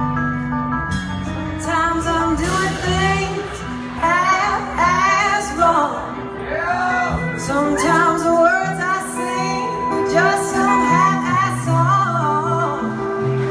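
Live band music: a female lead voice singing over electric guitar and a drum kit, recorded on a phone from the audience.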